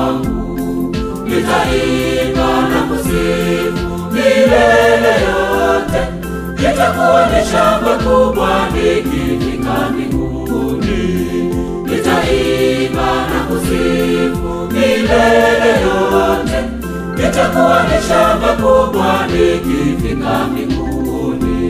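Mixed church choir singing a Swahili gospel hymn over continuous instrumental backing.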